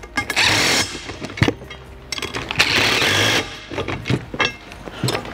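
Cordless drill running in two bursts, a short one just after the start and a longer one of about a second, tightening the bolts on a sprayer boom section, with a few sharp clicks of metal hardware between.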